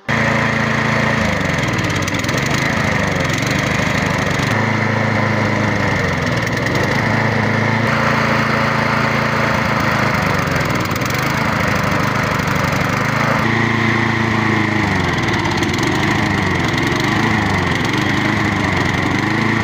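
Stiga lawn mower's Briggs & Stratton side-valve engine running, its revs repeatedly sagging and picking up again, most often in the last few seconds. This is the revs-drop fault that comes with the engine belching black smoke.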